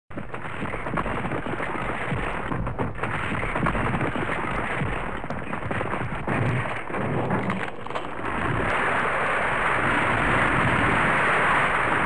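Earthquake sound effect: a low rumble thick with crackling and clattering. About eight and a half seconds in it swells into a louder, steady rushing noise.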